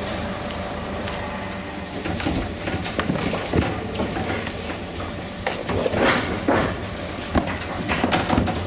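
Cattle coming off a livestock trailer: irregular knocks and clatter of hooves on the metal loading ramp and trailer, with scattered thuds that come thicker about two seconds in and again around six seconds.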